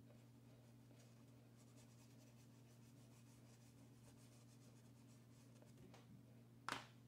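Faint scratching of a chalk pastel rubbed in short strokes across paper, over a steady low hum. Near the end comes a single sharp tap, the loudest sound here.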